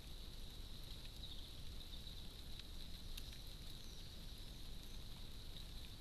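Faint steady high hiss with a low rumble, and a few soft ticks of small birds pecking and hopping at a seed tray.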